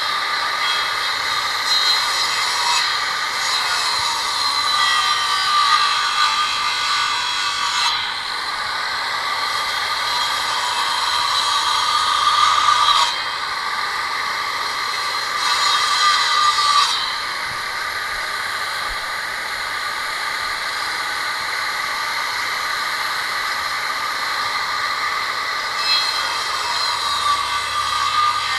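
Large angle grinder fitted with a 230 mm, 60-tooth saw disc for wood, running at speed and sawing oak: a steady high whine whose tone shifts several times as the blade bites into the wood and eases off.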